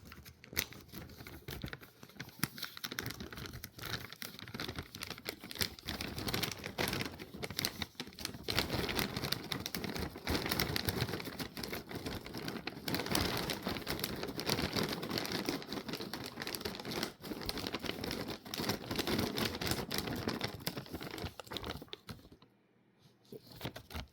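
Plastic treat packaging crinkling and rustling as it is handled and torn open, nearly continuous, stopping about two seconds before the end.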